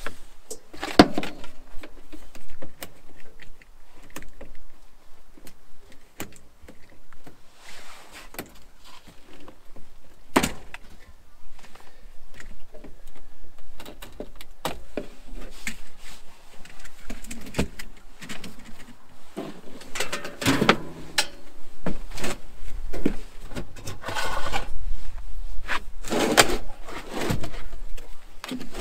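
Irregular knocks, clicks and rattles of hands-on work at a portable generator, its cables being unplugged and its metal frame handled and shifted. The handling gets busier and louder in the last few seconds. No engine or power tool is running.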